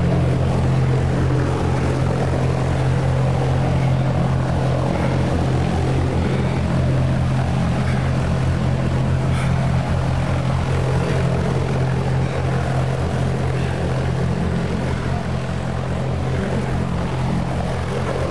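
Special-effects wind machine running steadily, its engine-driven fan making a loud, constant drone with a fast low pulsing as it blows the artificial snow.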